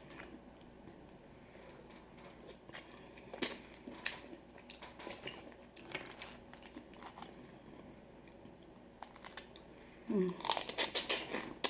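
Close-up eating of boiled crawfish: scattered cracks of shell, chewing and mouth smacking, with a couple of louder cracks about three and four seconds in.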